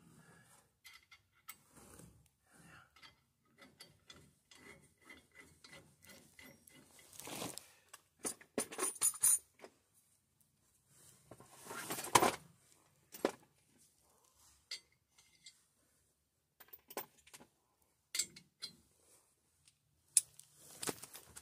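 Hand tools clicking and clinking on metal while a drum-brake backing plate is bolted onto the truck's axle: a run of small quick clicks, with a few louder metal clanks about midway and near the end.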